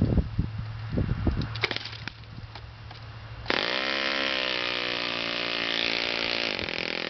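OS FS-20 four-stroke glow model aircraft engine being turned over by hand with a chicken stick, giving a few sharp knocks and pops. About halfway through it catches suddenly and settles into a steady, high-pitched run.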